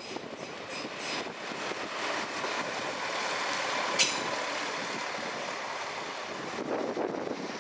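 Erixx class 622 Alstom Coradia LINT 54 diesel multiple unit passing close by: engine and wheel-on-rail noise builds to a peak in the middle and then eases off, with one sharp click about four seconds in.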